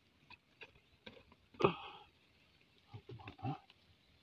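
Faint rustling and squelching as a hand gropes in a muddy hole among dry grass, with scattered small clicks. A short low sound falling in pitch comes about one and a half seconds in, and a few more short low sounds follow around three seconds in.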